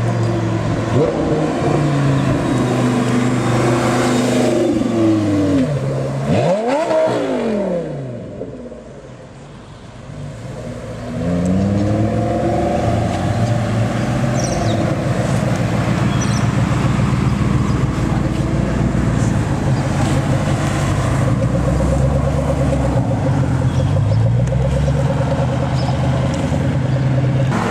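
Car engines revving and accelerating as cars drive past, with the engine notes climbing and falling. One car passes close about seven seconds in, its pitch sweeping up and then dropping away, before another car starts pulling away with a rising note.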